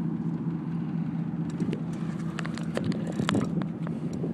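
An engine running steadily with a low, even hum. A scatter of sharp clicks and knocks comes over it in the middle.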